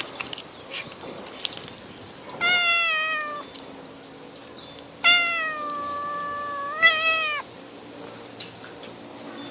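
A domestic cat meowing twice. The first is a short call falling in pitch; the second is a longer, louder call that holds steady and then rises sharply just before it ends.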